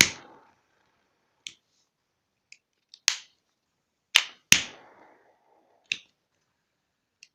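Triple-jet torch lighter being struck: a string of sharp clicks at irregular spacing, the loudest between about three and six seconds in, one followed by a brief faint rush, as of the jet catching.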